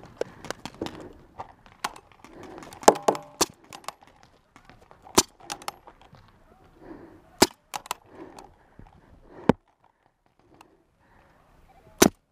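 Paintball game: sharp cracks of paintball markers firing and of paintballs striking the plastic barrel bunkers, scattered at irregular intervals, the loudest about three, five, seven and a half, nine and a half and twelve seconds in.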